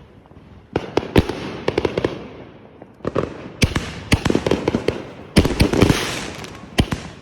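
Fireworks going off: clusters of sharp cracks and bangs in quick succession, with the biggest, densest burst about five and a half seconds in.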